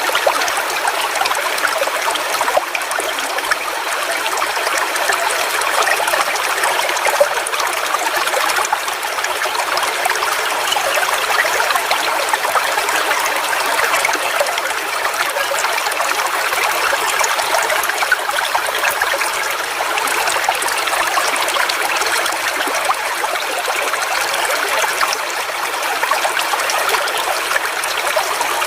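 Forest waterfall: water falling and flowing in a steady rush.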